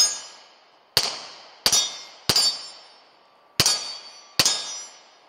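Six shots from a Taurus G3 Toro 9mm pistol, fired at an uneven pace with a short pause near the middle, each crack followed by a high ringing tail.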